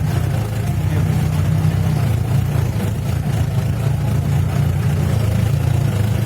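A motor vehicle's engine running steadily with a constant low hum.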